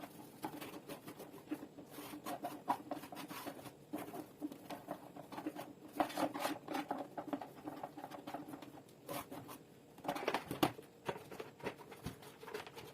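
Hands working over plastic electric-fan parts while cleaning them: irregular light scratching, rubbing and clicking, with a few louder clicks about halfway and near the end.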